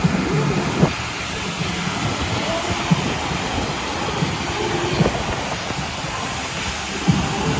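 FlowRider surf simulator's sheet of water rushing steadily up and over the ride surface, with a few short knocks.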